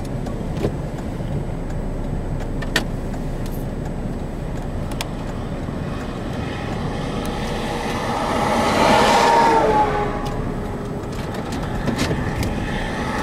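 Cars passing on a highway. One goes by about eight to ten seconds in, its tyre noise swelling with a tone that falls in pitch as it passes, and another approaches near the end, over a steady low rumble.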